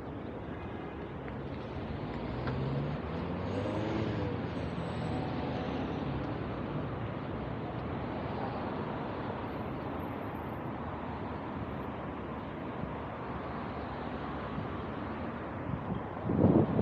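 Street traffic noise: a motor vehicle goes past, its engine hum swelling to its loudest about three to five seconds in and then fading slowly.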